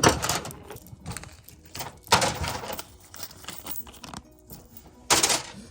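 Metal hood-hinge parts being handled: a few bursts of clinking and rattling, the loudest right at the start, about two seconds in, and near the end.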